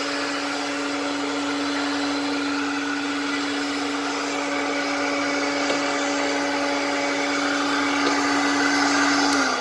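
1960 Sears Lady Kenmore Kenkart vacuum cleaner running on high: a steady motor whine with a strong hum under the rush of air. Right at the end the pitch starts to drop as the motor winds down.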